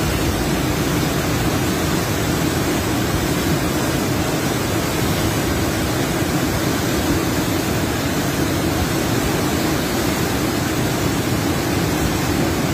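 Loud, steady rushing of a muddy river in flood, its churning torrent of water.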